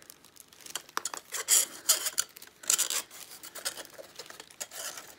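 Broken glass from a wind-up alarm clock's face clinking and scraping as the shards are worked loose into a plastic carrier bag, with the bag crinkling. A string of small clicks, with louder rustling bursts about one and a half and three seconds in.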